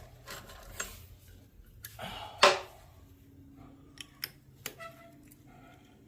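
Metal clinks and knocks of hand tools against the lathe's cast-iron headstock levers, with one sharp, loud metallic strike about two and a half seconds in and a few light ticks near the end.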